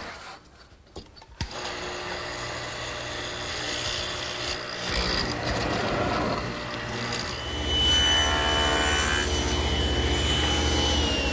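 Hollow-chisel mortising machine running, its quarter-inch chisel plunging into wood with a rasping sound. About seven seconds in, a table saw takes over with a steady high whine and low hum. Its pitch starts to fall near the end as the blade coasts down.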